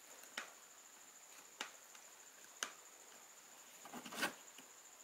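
Multimeter test probe tips tapping on the components of an amplifier circuit board: three light clicks about a second apart, then a louder cluster of clicks about four seconds in.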